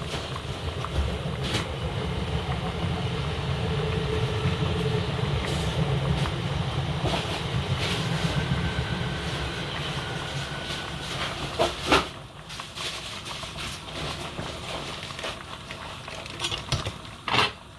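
A large pot of soup boiling hard on the stove with a steady rumble and hiss, easing off after about twelve seconds. A few sharp knocks of kitchenware are heard, the loudest about twelve seconds in and another near the end.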